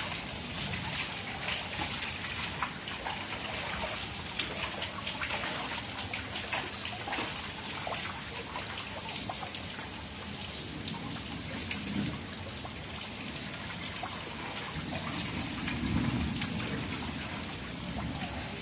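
Steady rain falling on standing water and a flooded concrete floor, a dense patter of small drop ticks. A low rumble comes in twice, once around the middle and again a few seconds before the end.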